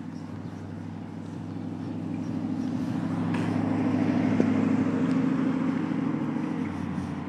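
Road traffic: a motor vehicle's steady engine hum with road noise that swells to a peak a little past the middle and then fades, as a vehicle passes.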